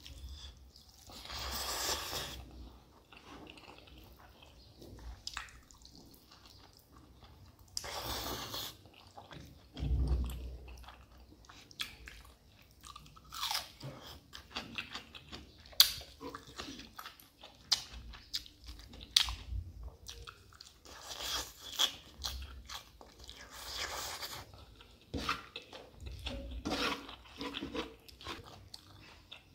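Close-up eating sounds: a person chewing and crunching mouthfuls of rice and spicy mutton innards eaten by hand, with wet mouth clicks and smacks scattered throughout and a few louder bursts of chewing noise lasting about a second.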